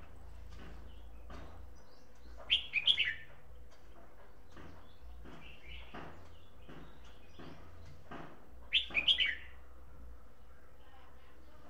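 Caged red-whiskered bulbul singing two short, loud, warbling phrases about six seconds apart, with softer chirps between.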